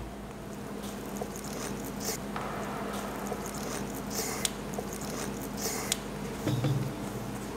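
A bite into a thick, juicy hamburger, then chewing: a few short, soft squishy bursts over a low steady hum.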